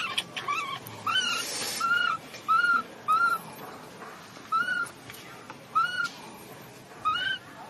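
Newborn macaque crying: about ten short, high, arching coos that rise and fall, coming in an uneven series with brief gaps. These are an infant's distress calls.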